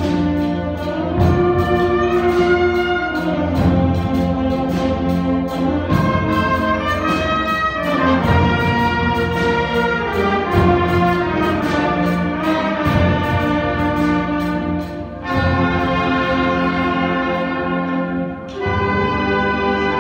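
School concert band playing: brass and woodwinds sound full chords that change every second or two over a steady light percussion beat. There are two short breaks between phrases near the end.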